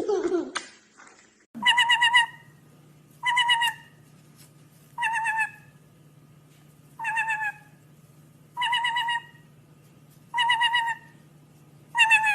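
A bird repeating the same short warbling call seven times, evenly spaced about every one and a half to two seconds, over a steady low hum. It opens with a single call that slides down in pitch.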